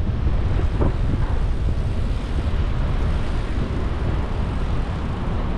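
Steady wind rushing over the microphone of a bicycle-mounted camera while riding, over the low rumble of city street traffic.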